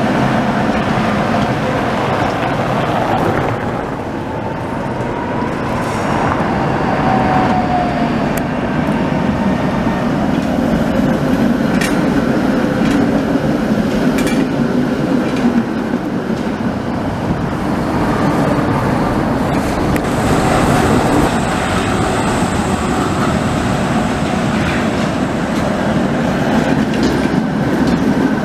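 Tatra T3 trams rolling past close by on street track: a steady rumble of steel wheels on the rails and running gear, with a few sharp clicks near the middle.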